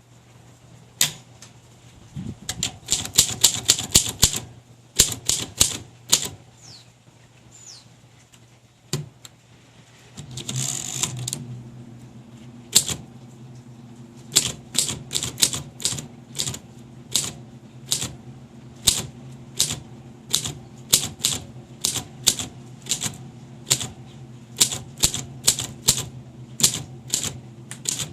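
1933 Smith Corona floating-shift flat-top manual typewriter being typed on: a quick run of key strikes, a one-second rasp about ten seconds in, then steady keystrokes about two a second. A low hum sits underneath from about the same point on.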